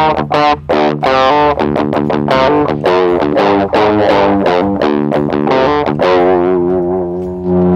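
Electric guitar played through an Electro-Harmonix Metal Muff Pocket high-gain distortion pedal, with its scoop switch off and its gain at the bottom of its range. The guitar picks a quick riff of separate notes, then lets notes ring out held from about six seconds in.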